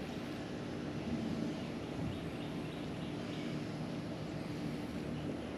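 Steady low drone of a distant motor, with a few faint bird chirps over it.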